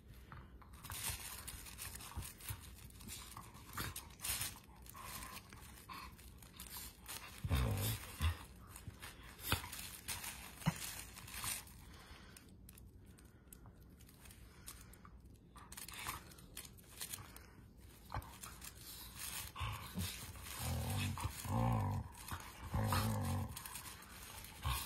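Two dogs play-wrestling on a plush dog bed: scuffling and fabric rustling with soft clicks, and short low bursts of dog sound, a couple around eight seconds in and a denser run between about twenty and twenty-three seconds.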